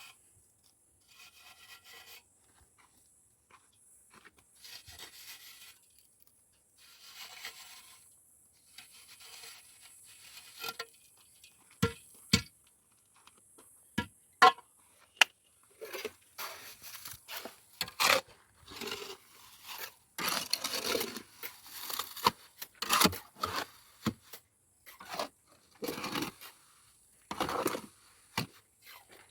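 Repeated scraping strokes of a hand tool, spaced about every two seconds at first and then coming thicker and faster, with several sharp knocks in the middle.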